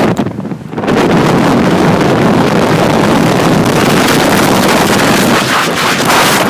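Strong wind buffeting the microphone: a loud, dense rush that dips briefly in the first second, then holds steady.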